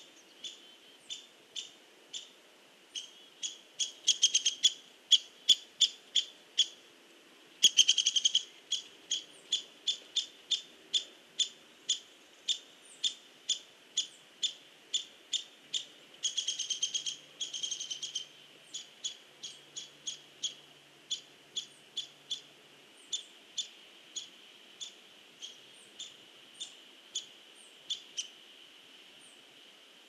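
Hairy woodpecker pecking at a tree trunk: single sharp taps about two a second, broken three times by quick rapid-fire bursts of taps.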